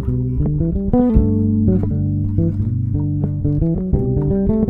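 Electric bass improvising a fast melodic line over a looped backing of G major 7 and C major 7 chords, using the major pentatonic built on the fifth of each chord (D pentatonic over G, G pentatonic over C), so most notes are the chords' color tones rather than their roots.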